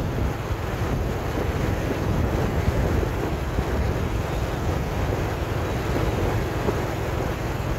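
Steady wind rush and low rumble on the microphone of a camera travelling along the road in a moving vehicle.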